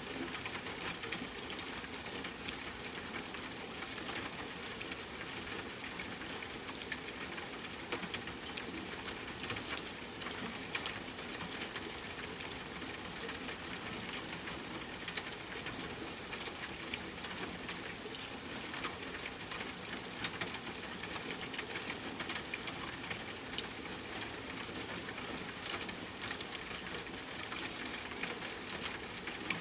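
Steady rain falling, a continuous hiss with many small drop impacts pattering on a surface.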